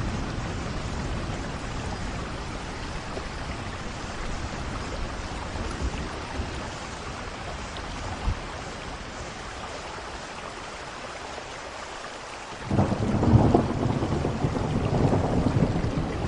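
Steady rain falling, with thunder rumbling low. A new roll of thunder breaks in suddenly near the end and is the loudest part.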